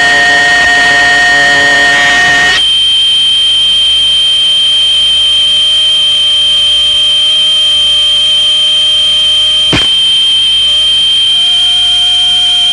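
Noise music made of loud, sustained electronic feedback tones: a high steady whine over fainter lower tones. The texture cuts abruptly to a new set of tones about two and a half seconds in, and a single sharp click cuts through near the ten-second mark.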